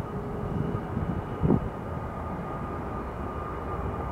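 Airbus A380's four turbofan engines at climb power during a go-around, a deep steady rumble with a faint steady whine above it. A brief low thump about a second and a half in.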